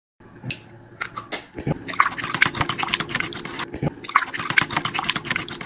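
A few light taps as egg goes into a paper cup of leftover instant ramen broth, then a utensil rapidly whisking the egg into the broth, a fast run of scraping clicks and sloshing against the cup.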